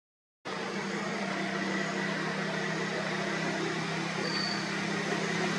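Steady outdoor background hum and hiss, a constant low drone under a noisy wash, starting about half a second in, with one brief high whistle-like note about four seconds in.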